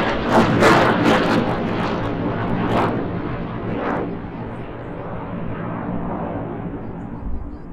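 Jet noise from the Blue Angels' six F/A-18 jets flying in formation overhead. It is loud and crackling for the first three seconds, then fades to a duller, steady rumble as the formation turns away.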